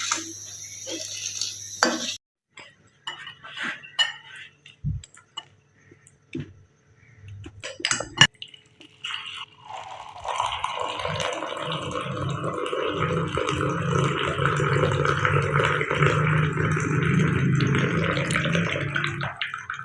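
A spoon stirring tea in a cup, with scattered sharp clinks against the cup, followed by about ten seconds of a steady rushing sound as the tea is beaten, ending just before speech resumes.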